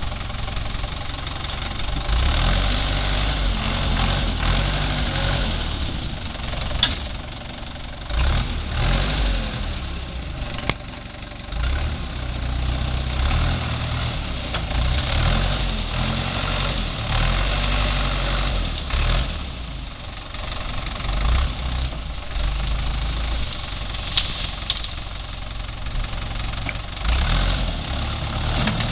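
Case 530 Construction King backhoe engine working, its note rising and falling with the load every few seconds, with a few sharp cracks or clanks.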